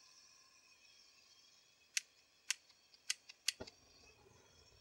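Propane hissing faintly and steadily out of an unlit burner nozzle once the cylinder valve is opened. About two seconds in, a quick series of sharp clicks from the valve and regulator fittings being handled ends in a duller knock.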